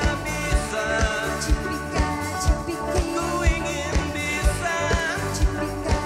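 Live band playing an upbeat song: electric guitars, electric bass and a drum kit, with the kick drum landing about twice a second and singing over the top.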